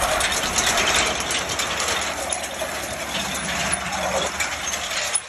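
Potato harvester running, its steel rod-chain conveyor clattering steadily as it carries potatoes and dirt, over an engine's steady drone.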